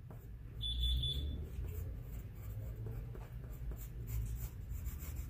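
Wooden pencil scratching on paper in short sketching strokes. A brief high, steady beep-like tone sounds about half a second in and lasts under a second.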